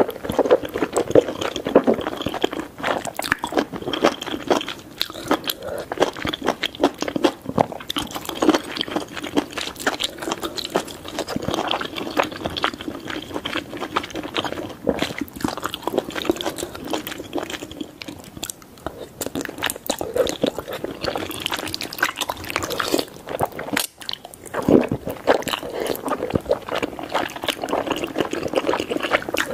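Close-miked wet chewing and slurping of wide glass noodles in a thick spicy sauce: a dense, steady run of sticky smacks and clicks from the mouth, with a brief lull late on.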